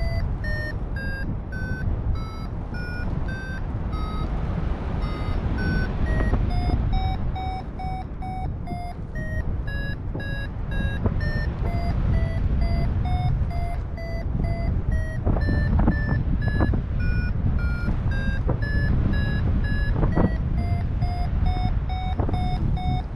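Paragliding variometer beeping in a quick regular rhythm, about three beeps a second, its pitch stepping up and down as the climb rate changes: the beeping signals rising air. Wind rushes over the microphone underneath.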